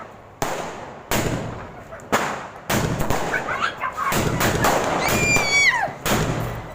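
Diwali firecrackers going off one after another, sharp bangs at irregular intervals of about a second, with a falling whistle about five seconds in.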